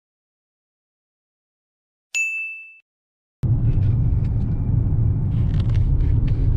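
After about two seconds of silence, a single bright electronic chime rings and fades quickly. From about three and a half seconds in, a steady low rumble of road and engine noise inside a moving car's cabin at highway speed starts abruptly and becomes the loudest sound.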